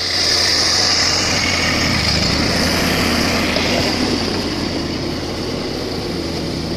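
Kubota U15-3 mini excavator's diesel engine running steadily as its arm and bucket dig into a manure pile, with a steady high hiss over the engine.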